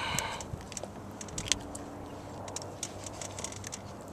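Handling noise in a canoe: a short rustle at the start, then scattered light clicks and taps.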